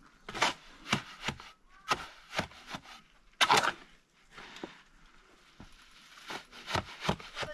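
A shovel chopping and scraping through wet cement mortar in a metal wheelbarrow, in short strokes about twice a second. The longest and loudest scrape comes about three and a half seconds in, followed by a quieter pause before the strokes start again.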